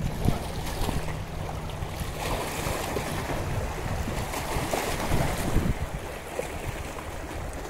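Wind buffeting the microphone over choppy lake water, in uneven gusts. A low steady hum sounds through the first two seconds or so.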